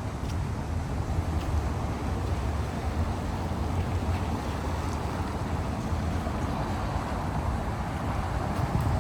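Steady outdoor city ambience: an even low rumble with no distinct events standing out.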